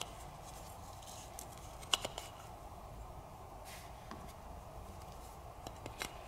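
Faint clicks and taps of hard plastic toy food pieces being handled, a toy rice ball and a small cylinder piece knocking together. A sharp click about two seconds in and a few more near the end, over a low steady hiss.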